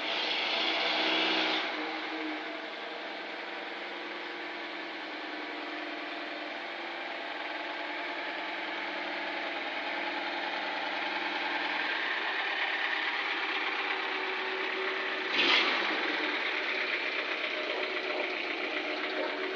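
Opel Rekord A car engine idling steadily, a little louder for the first couple of seconds. A short, sudden noise stands out about three-quarters of the way through.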